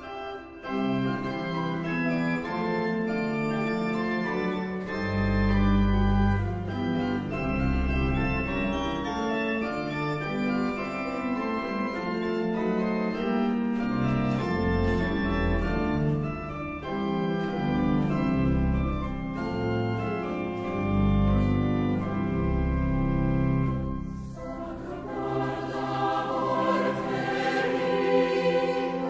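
Organ music playing slow held chords, with deep bass notes coming in and out. About 24 seconds in, a choir joins in singing.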